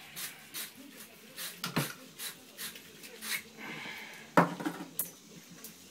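Copper pipe being scrubbed clean for soldering: short scratchy rubbing strokes, with a sharp knock about four and a half seconds in.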